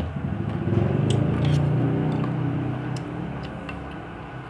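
Spoons and forks making light clicks against the metal pans while eating, over a low steady hum that swells about half a second in and fades toward the end.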